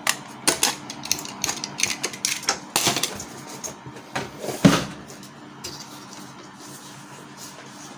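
Hard plastic clicks and knocks from the Canon G1010 printer's plastic housing being handled, ending just past halfway in a louder, deeper thump. After that only a faint steady hum remains.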